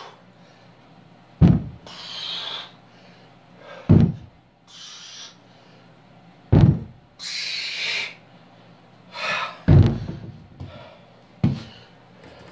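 Cap Barbell deadlift bar loaded with iron plates knocking down on the floor at the bottom of each deadlift rep, five knocks about two and a half seconds apart, each with a brief ring. Between the knocks, the lifter's hard breathing.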